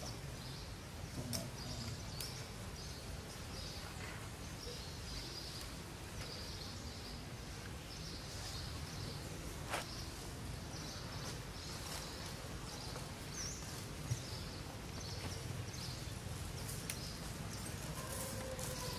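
Outdoor ambience: a steady low rumble with a short, high chirping call repeating about one and a half times a second, and a couple of faint clicks.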